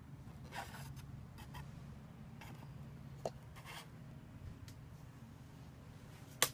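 A few soft, short scrapes and rubs over a steady low hum, with a small click about three seconds in and a sharper click near the end.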